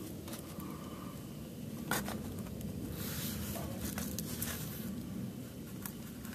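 Shuffling and scraping of a person crawling about under a pickup truck, with a few sharp clicks, the loudest about two seconds in, over a steady low rumble.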